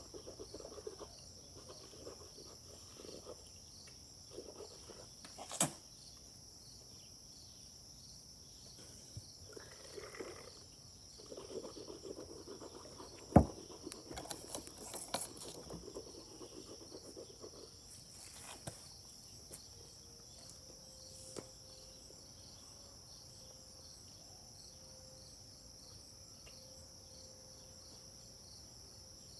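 A steady high-pitched insect chorus drones throughout, with scattered faint handling rustles and a single sharp knock a little under halfway through.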